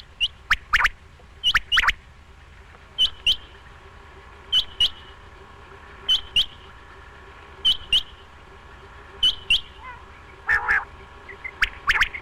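Quail calling: short, sharp high notes given in pairs, the pair repeated about every second and a half, with a louder run of several notes near the end.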